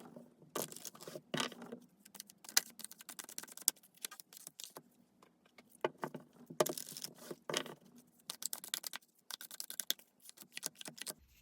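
Tarot cards being shuffled by hand: bursts of rapid clicking and rattling with short pauses between them, stopping just before the end.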